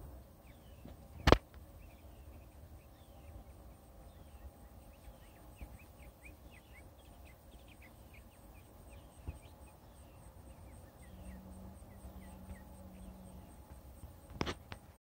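Outdoor ambience of many short, high chirps from small animals, scattered and irregular, over a faint steady hiss. A sharp click about a second in is the loudest sound, with two more clicks near the end.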